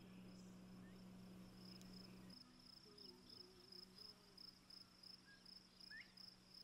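Faint insect chirping, a steady high pulsing trill like a cricket's, over near silence. A low hum underneath drops away about two seconds in.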